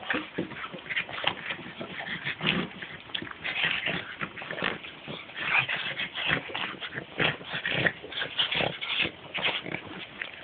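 A pug making short, irregular vocal noises while it plays, mouthing and pushing at a stick held out to it.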